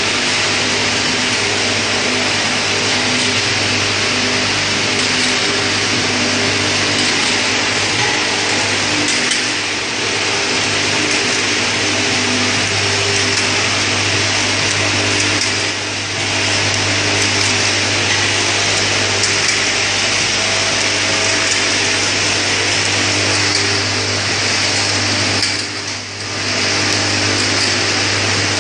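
Automatic liquid filling and capping machine running: a steady mechanical whirr over a constant low hum, dipping briefly three times.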